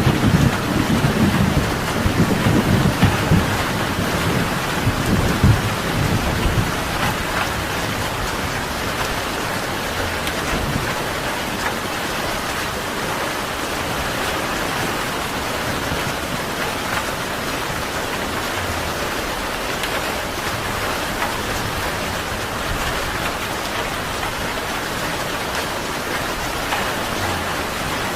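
Steady rain falling, with a low thunder rumble rolling away over the first few seconds, then the rain alone.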